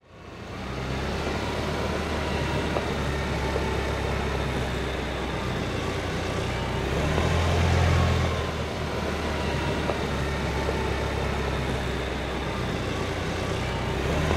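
A steady low mechanical rumble, like a vehicle engine, fading in at the start and swelling briefly about eight seconds in.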